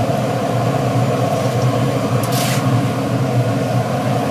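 Steady machine drone from a running biomass gasifier furnace, holding one even hum throughout, with a brief hiss about two and a half seconds in.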